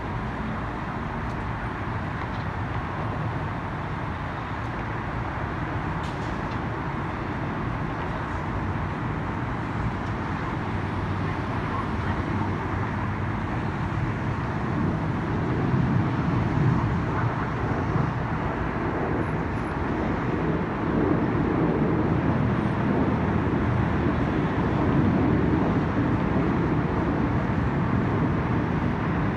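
Low, steady rumble of CT-114 Tutor jets flying a formation display, heard from afar over city background noise. It swells about halfway through and stays louder.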